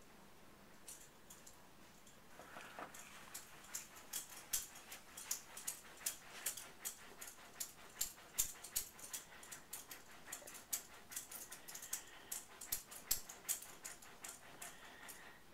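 Beagle digging and scratching at bedding to bury a chew bone: a rapid, irregular run of sharp scratches from its claws on the fabric, with a faint whine near the end.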